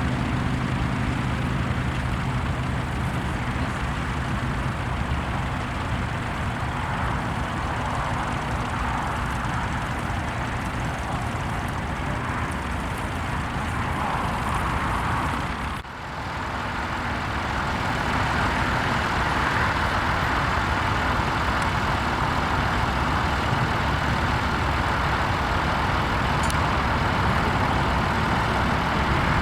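Tractor engine running steadily under load, with a brief drop a little over halfway through before it carries on slightly louder.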